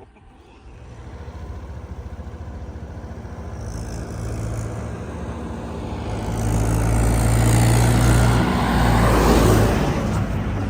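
A motor vehicle's engine approaching and growing steadily louder, then passing close by near the end with a rush of noise.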